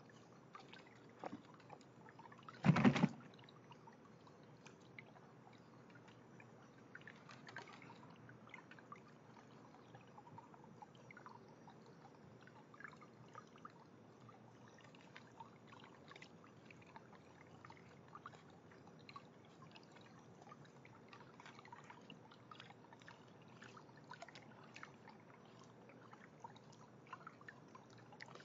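Raccoons dabbling and paddling in the water of a wooden half-barrel fountain: faint small splashes, trickles and clicks throughout, with one louder thump about three seconds in.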